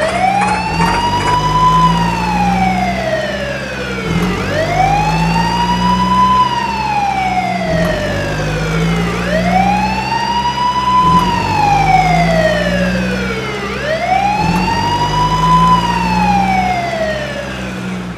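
A wailing emergency siren: each cycle rises quickly and falls slowly, repeating about every four to five seconds, four times, over a steady low rumble. It fades near the end.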